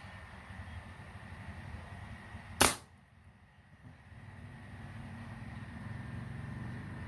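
A single shot from a Moser SJ PCP air rifle fitted with a silencer: one sharp crack about two and a half seconds in, with a short tail. It is a test shot to check whether the repaired chamber still leaks air.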